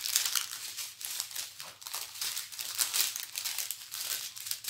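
Small clear plastic bags of diamond-painting drills crinkling as they are handled and shuffled, in a dense run of short, irregular crackles.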